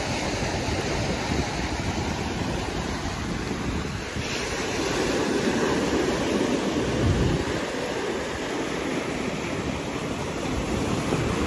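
Small sea waves breaking and washing up over rocks and sand at the shoreline, a steady rush of surf, with wind buffeting the microphone.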